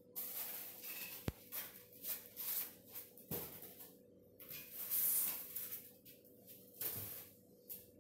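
Packing being pulled out of a cardboard carton: styrofoam and plastic wrap rustling and scraping in irregular bursts, with a sharp click about a second in and a couple of knocks.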